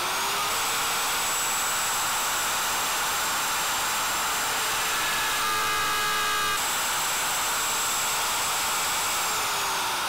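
Plunge router with a 3/8-inch straight bit running at full speed, just coming up to speed at the start, with a steady high whine. About five seconds in it is plunged into the wood to rout a hinge mortise, and the tone changes under the cutting load. Near the end it is switched off and its whine falls in pitch as it winds down.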